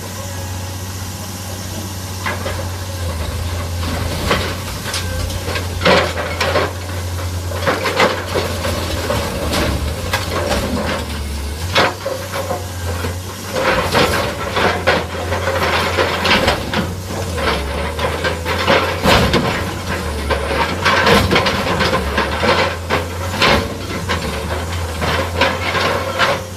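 An excavator crushing a car body: irregular crunching, scraping and metal knocks from the bucket working the wreck, coming more often in the second half. Under them the excavator's engine runs with a steady low hum.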